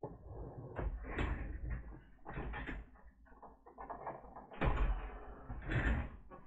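Handling noises on a workbench: a series of uneven rubbing and scraping strokes, the loudest starting about two-thirds of the way in and near the end.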